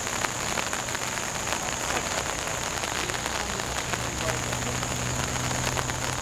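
Steady rain pattering on surfaces, a dense hiss dotted with many small drop ticks.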